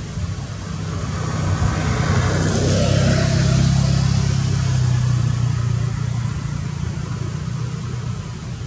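A motor vehicle driving past: a low engine hum with tyre hiss that grows louder for a couple of seconds, peaks about halfway through, then fades away.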